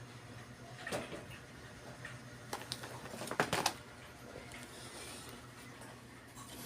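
Scattered small clicks and knocks of computer hardware being handled, a SATA power cable and hard drive in a desktop case, most of them about a second in and around the middle, over a faint steady hum.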